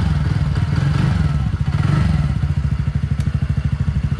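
TVS Ntorq 125 scooter's single-cylinder engine being revved: throttle blips in the first two seconds, then settling back to an even, rapidly pulsing idle.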